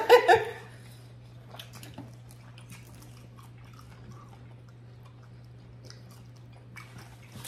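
Faint close-up chewing and mouth sounds of people eating a seafood boil: scattered small clicks and smacks over a steady low hum. A brief laugh or voice sits at the very start.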